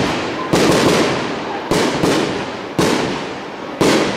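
Fireworks display: aerial shells bursting one after another, five or six sharp bangs in a few seconds, each fading away in a rumbling tail.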